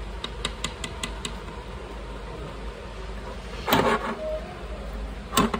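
A paintbrush clattering against small paint pots: a few light clicks in the first second or so, then two louder knocks about a second and a half apart near the end, over a steady low hum.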